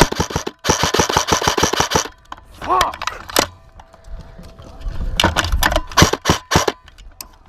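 Airsoft gun firing a rapid full-auto burst of about a second and a half, followed a little later by a short shout and a few scattered single shots.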